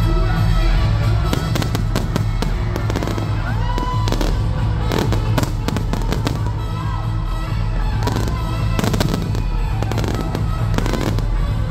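Fireworks going off in quick succession, sharp bangs and crackles from aerial shells and rising comets, over loud music with a strong bass.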